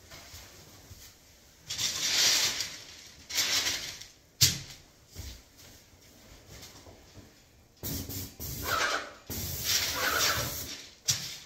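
Paint spray gun hissing in a series of short bursts, each lasting up to about a second and a half, as the gun is triggered for spray passes. There is a single sharp click about four and a half seconds in.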